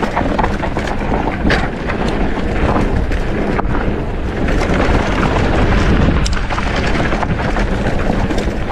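Mountain bike ridden fast down a dirt trail: steady wind rush on the microphone with tyre noise, and scattered knocks and rattles of the bike over bumps.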